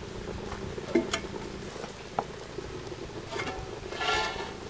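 Goat trotter soup simmering in a pot, with a few light clicks in the first couple of seconds.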